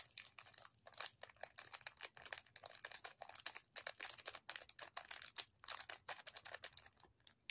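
Leftover diamond-painting gems being shaken out of a plastic bag into a plastic gem tray: the bag crinkles and the tiny acrylic gems rattle as a dense, uneven run of small clicks, stopping near the end.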